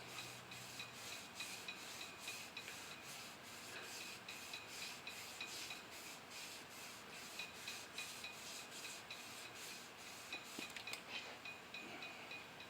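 Flat shoestring loaded with valve lapping compound being pulled back and forth around a steel crankshaft journal, a faint rhythmic rubbing at about three strokes a second as the journal is polished. The strokes stop about eleven seconds in.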